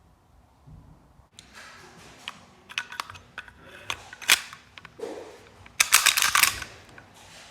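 Parts of an airsoft Colt 1911 gas blowback pistol clicking and clacking as it is handled and put back together, with a quick run of sharp clicks about six seconds in.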